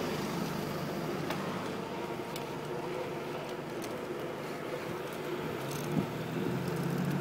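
Steady road and traffic noise heard while cycling, with a few faint clicks and a short knock about six seconds in.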